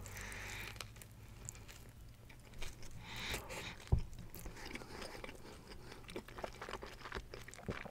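Close-miked chewing of a mouthful of Italian sub sandwich: soft crunching of bread and lettuce with scattered wet mouth clicks, and a sharper click just before four seconds in.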